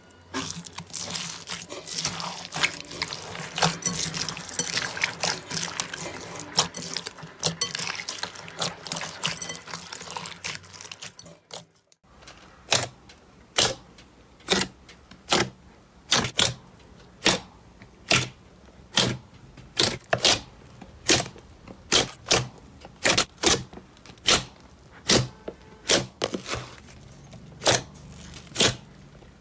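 Slime being worked by hand, first squished and kneaded with a dense wet crackling, then, after a break about twelve seconds in, poked or pressed in a steady series of sharp pops, a little more than one a second.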